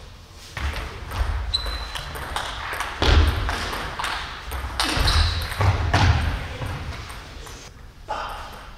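Table tennis rally: the celluloid ball clicks rapidly off the paddles and table, amid heavy thuds of the players' footwork on the wooden gym floor. The rally ends about seven seconds in.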